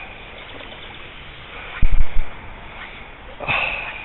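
Wading in a shallow river: water sloshing and trickling around the legs, a few heavy low thumps about halfway through, and a sharp splash near the end.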